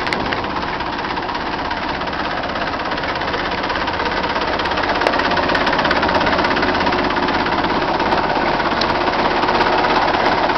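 Massey Ferguson 2605 tractor's diesel engine idling steadily, getting a little louder about halfway through.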